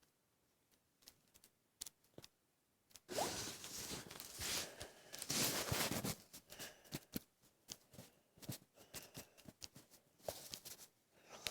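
Close-up handling noises: a few small clicks, then a burst of rustling, scraping noise lasting about three seconds, then scattered clicks and short scrapes, like materials being cut, torn or handled.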